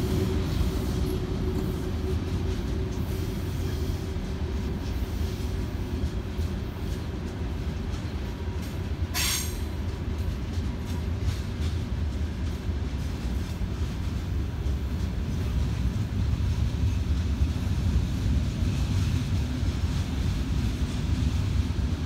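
Freight train of coal-loaded open wagons behind a VL11M electric locomotive rolling past with a steady low rumble of wheels on rail. A brief high squeal sounds once about nine seconds in.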